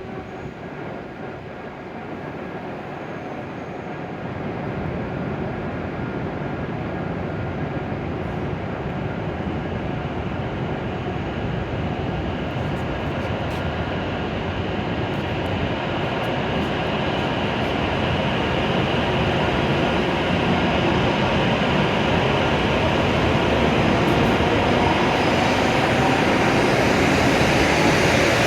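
W7 series Shinkansen train pulling out of the station, a steady rushing noise that grows gradually louder, with a faint whine near the end.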